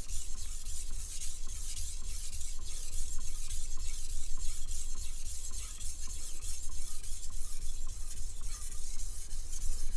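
Chef's knife being sharpened on a whetstone: a steady run of quick, gritty scraping strokes of the steel edge across the stone.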